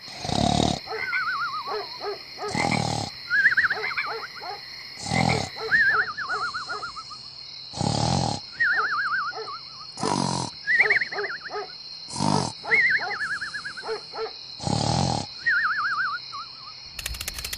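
Cartoon snoring sound effect, a loud rasping snore about every two and a half seconds, over a nature ambience of birds singing in falling warbled trills and a steady high-pitched insect drone.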